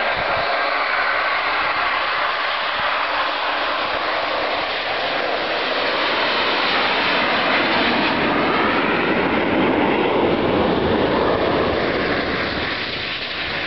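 Jet aircraft flying past: a loud, steady rushing engine noise whose tone sweeps slowly up and down as they go by, easing off near the end.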